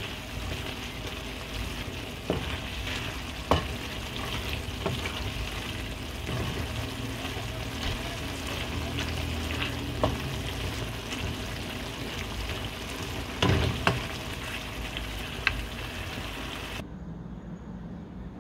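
Red amaranth greens sizzling in a metal frying pan as a wooden spatula stirs them, with a steady frying hiss and a few sharp knocks and scrapes of the spatula on the pan. Near the end the sizzling cuts off suddenly, leaving a quieter low hum.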